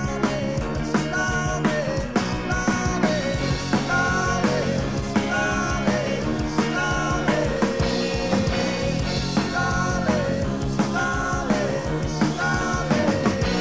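Live rock band music from a 1980s cassette recording, with a steady drum beat under held, gliding melody notes.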